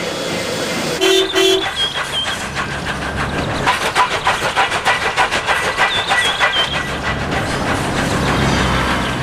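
Layered steam locomotive sound effects: two short whistle toots about a second in, then fast, busy steam chuffing and clanking with short high squeaks, and a low rumble building near the end.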